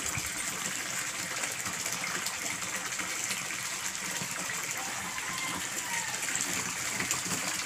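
Water pouring from an open pipe into a fish pond, a steady splashing gush.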